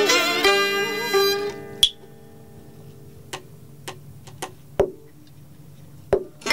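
Southern Vietnamese đờn ca tài tử ensemble playing: đờn cò two-string fiddle, đờn kìm moon lute, tỳ bà, tiêu flute and đờn tranh zither. About a second and a half in, the ensemble drops away to a near-pause with a few isolated plucked notes and clicks. The full ensemble comes back in at the very end.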